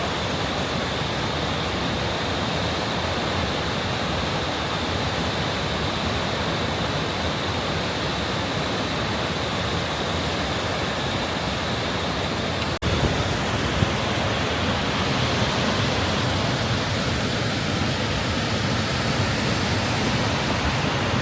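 Ouzoud Falls' water rushing, a steady, even noise of falling water. About two-thirds of the way through it cuts out for an instant, then carries on slightly louder.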